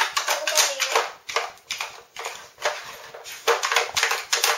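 Hard plastic clattering and rattling: the Nina Ottosson Dog Casino puzzle board, its drawers and pegs being knocked about by a dog pawing and nosing at it. A fast, irregular run of clicks and knocks.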